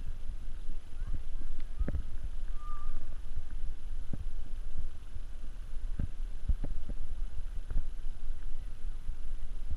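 Wind buffeting the camera microphone: an uneven low rumble with scattered gusty thumps. A single short, faint bird chirp about two and a half seconds in.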